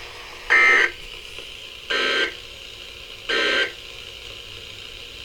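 Emergency Alert System end-of-message data code on NOAA Weather Radio: three short, harsh buzzing data bursts, each about a third of a second long and about 1.4 s apart, with steady receiver hiss between them. The bursts mark the end of the watch message.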